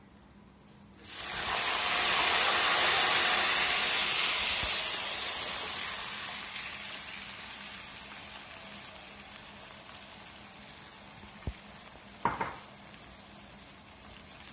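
Milk poured into a hot wok of vermicelli fried in ghee bursts into a loud sizzle about a second in, then slowly dies away. A couple of short light knocks come near the end.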